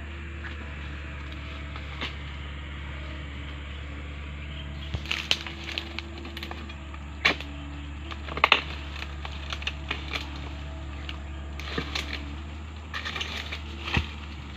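Pole-mounted chisel (dodos) striking and cutting into an oil palm's frond bases and fruit-bunch stalks: scattered sharp knocks and cracks over a steady low hum.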